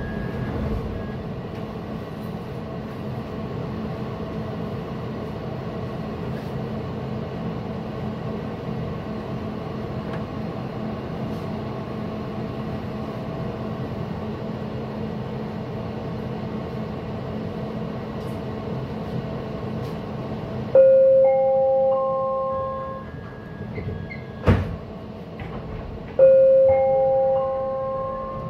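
A SkyTrain car hums steadily while standing at an underground platform. About 21 seconds in, a loud three-note rising chime sounds, the warning that the doors are closing. A single sharp knock follows, then the chime sounds again.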